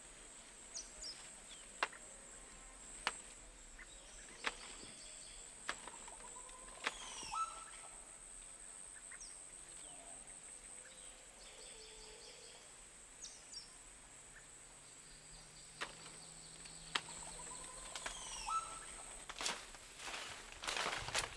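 Forest ambience: a steady high-pitched insect drone with occasional short bird chirps, broken by scattered sharp snaps, and a quick flurry of rustling and snapping near the end.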